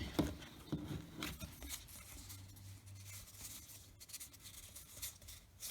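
Faint rustling and light ticks of baseball trading cards being slid and flipped over by hand.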